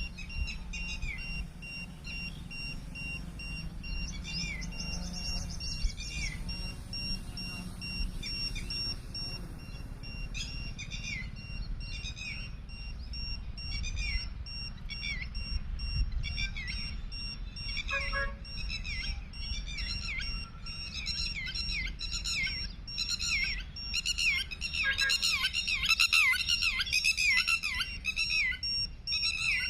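Small birds chirping, repeated short downward-sliding calls that grow thicker and louder over the last several seconds, over a steady low rumble.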